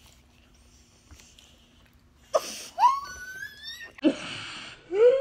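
A few seconds of quiet, then a kid's voice gives two breathy gasps, each running into a high, rising wailing cry.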